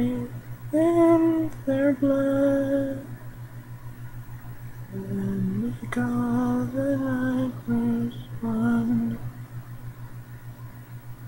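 A man's voice humming a slow, wordless tune in long held notes, in two groups of phrases with a pause of about two seconds between them. A steady low hum runs underneath.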